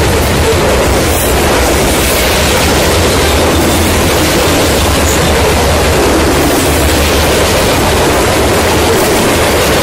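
Covered hopper cars of a long freight train rolling past close by: a steady, loud rumble and rush of steel wheels on the rails.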